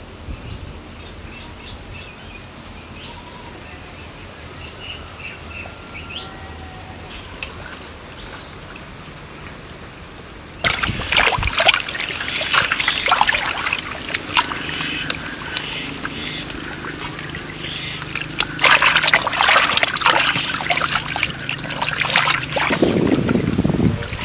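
Birds chirping over quiet outdoor background, then about ten seconds in a sudden loud spattering, splashing noise full of crackles that swells again near the end.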